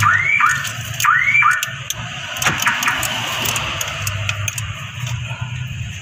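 Car alarm siren sounding in rising whoops about once a second, stopping about a second and a half in; after that, scattered sharp clicks and a steady low hum.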